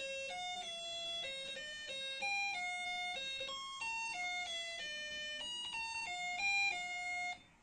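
Snap Circuits music IC playing its short electronic tune through the small speaker, a melody of plain beeping notes, set off again by the whistle chip acting as the sound-activated trigger. The tune stops on its own near the end.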